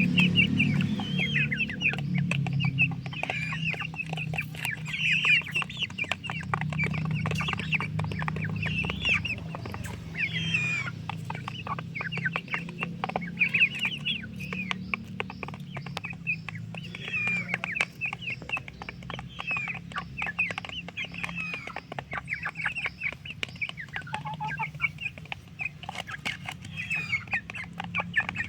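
A flock of chickens clucking and calling, with many quick high chirps overlapping throughout and scattered small clicks.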